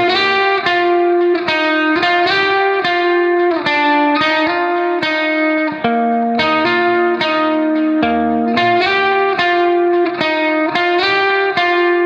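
Background music: a melody of plucked notes, each ringing on after it is struck, at a steady pace.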